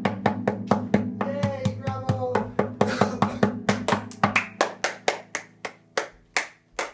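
A child beating on the wooden body of a classical guitar with his hand, about four hits a second, with the open strings ringing along. The beats slow and space out near the end. A voice sings a short phrase about a second in.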